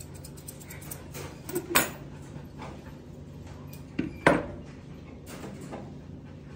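Grooming scissors snipping a dog's coat in a string of quick, faint cuts, with two louder metallic clacks about two and a half seconds apart.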